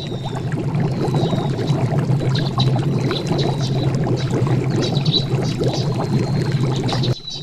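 River water rushing and splashing steadily, with faint high-pitched chirps over it. The sound drops off suddenly near the end.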